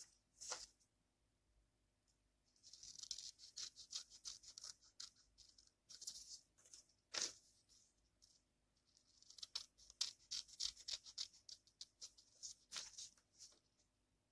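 Scissors cutting through a sheet of coloured paper: several short runs of crisp, high-pitched crackling snips with a few sharper clicks, separated by pauses.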